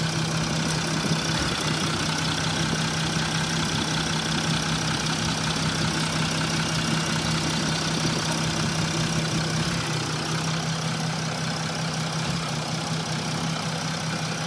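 Mercedes-Benz S-Class W222's OM642 V6 diesel idling steadily. The engine has an injector connector knocked loose, which the owner blames for a hunting idle, crankcase blow-by and a knock from the engine.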